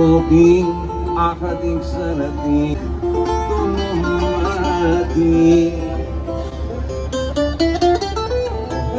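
Live Greek bouzouki music: a plucked string melody over a steady, pulsing bass beat.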